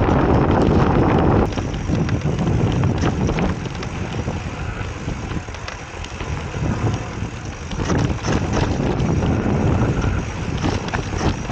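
Wind buffeting the microphone of a mountain bike being ridden down a dirt singletrack, with the crunch of knobby tyres and light rattling clicks from the bike over stones. The rush is heaviest for about the first second and a half, then eases.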